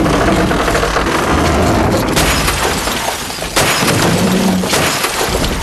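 Car being heaved over onto its roof: a loud run of crashing and shattering sound effects with several heavy impacts, over music.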